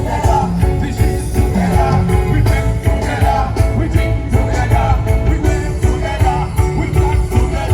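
Live band playing at a soundcheck: a steady drum beat over a heavy bass line, with a voice singing.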